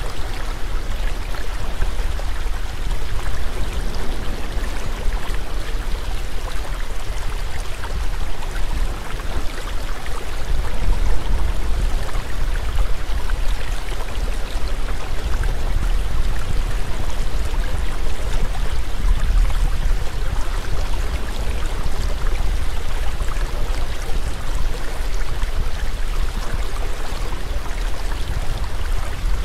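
Steady rushing water ambience with a low rumble underneath.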